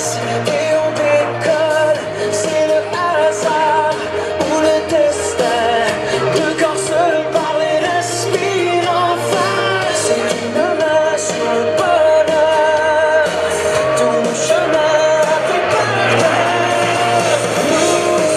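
Pop music with a singing voice, a steady bass line and a regular beat.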